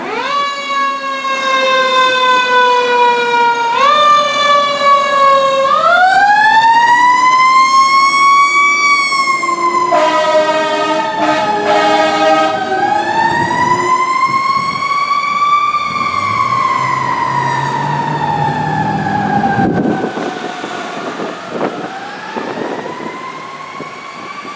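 A fire truck's siren on a tiller ladder truck responding to a call. It gives a few quick rises in pitch, each falling slowly away, then settles into long, slow rising-and-falling wails. About ten seconds in, a steady horn note sounds for a couple of seconds.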